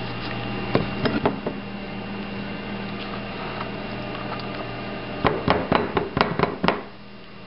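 Spatula and Vitamix container knocking and scraping against a glass bowl as thick nut pâté is tapped out of the blender jar. There are a few knocks about a second in, then a quick run of sharp knocks about five seconds in, over a steady low hum.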